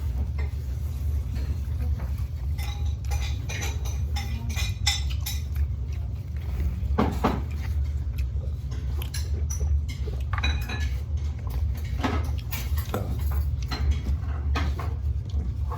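Utensils clicking and clattering against bowls and dishes during a noodle meal, in short irregular strokes over a steady low hum.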